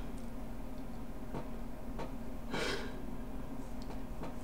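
Low steady room hum with a man's short, sharp breath about two and a half seconds in, and a few faint clicks.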